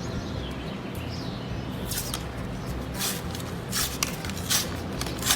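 Paper-wrapped tube of refrigerated biscuit dough being handled and opened: a series of short crinkling, tearing rustles about a second apart. A bird chirps briefly in the first second.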